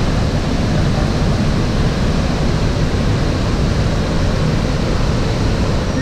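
Waterfall's falling water rushing as a loud, steady wash of noise.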